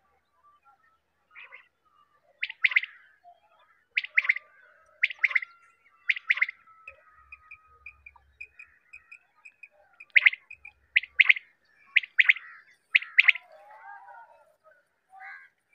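Quail calling: sharp, high whistled calls repeated about once a second in two runs, with a quicker series of faint short notes in the gap between them.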